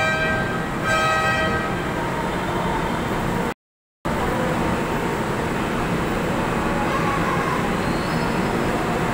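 Rail station platform ambience: two short pitched warning tones in the first two seconds, then a steady rumble of station and train noise. The sound drops out to silence for about half a second a little past three seconds in.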